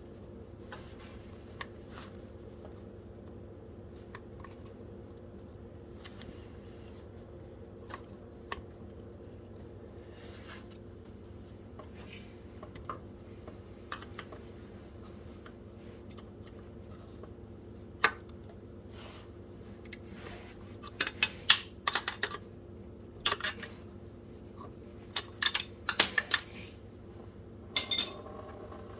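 Hand tools and metal fittings clicking and clinking while the oil pressure sensor fitting is worked loose from an OM617 diesel engine. Light scattered ticks give way to a run of louder sharp metal clinks and rattles in the last third, over a steady low hum.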